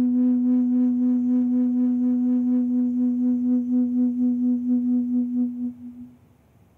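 A single held, ringing musical tone with a steady pulsing wobble, as used to focus a listening meditation. It dies away about six seconds in.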